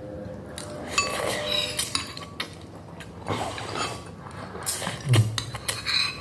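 Metal forks and spoons clinking and scraping against ceramic bowls as noodles are eaten, in short irregular clinks. About five seconds in, a short low voice sound, like a grunt or sigh, is heard.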